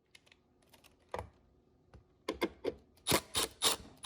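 Plastic clicks and knocks from a refrigerator's water-dispenser display panel being pried loose by hand. There are a few faint ticks, a sharper knock about a second in, then a quick run of louder clicks over the last second and a half.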